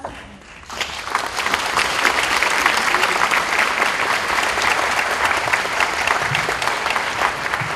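Audience applauding: dense, steady clapping that starts about a second in and holds at full strength.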